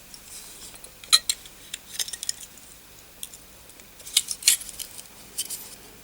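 Small metal tools being handled on a work bench: a series of sharp, light metallic clicks and clinks in scattered clusters.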